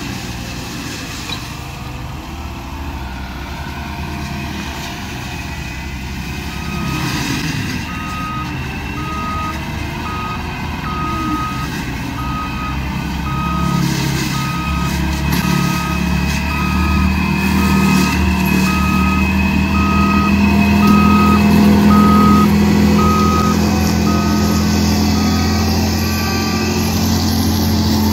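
Cat 299D3 XE compact track loader's diesel engine running steadily, growing louder as the machine comes closer. Its backup alarm beeps about once a second from about six seconds in until near the end.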